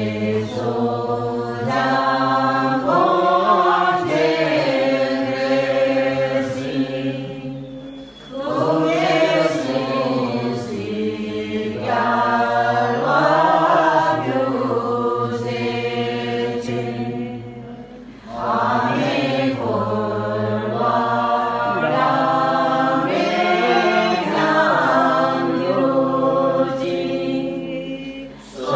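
A group of women chanting a Tibetan Buddhist prayer together in unison to a simple repeating melody. The chant runs in long phrases of about ten seconds, each ending in a short pause for breath.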